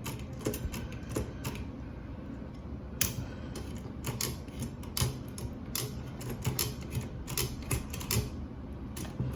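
Hermès Baby portable typewriter being worked by hand: irregular sharp mechanical clicks and clacks from its parts.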